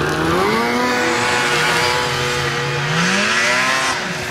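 Snowmobile engine running close by, its pitch climbing as it speeds up about half a second in and again about three seconds in.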